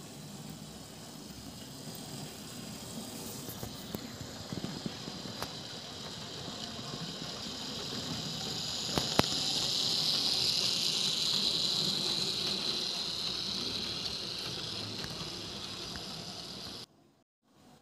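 Fleischmann H0 model train, a Prussian T3 tank locomotive on a Baureihe 80 chassis, running along the track: a steady motor whir and wheel-on-rail hiss that grows louder as it comes close and passes, with a few light clicks from the wheels. The sound cuts off suddenly near the end.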